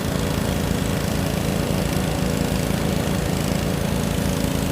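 Pressure washer's gasoline engine running steadily at a constant speed, with an even hiss over it.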